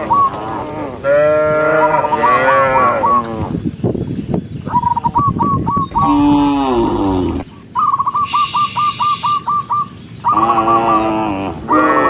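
Cattle in a herd mooing: several long, overlapping moos one after another. Between the moos come two fast, even runs of short high chirps.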